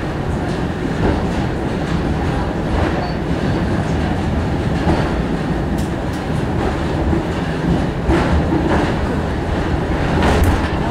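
Sakamoto Cable funicular car running on its rails, heard from inside the car: a loud, steady rumble of the wheels on the track, with a few brief sharp sounds in the second half.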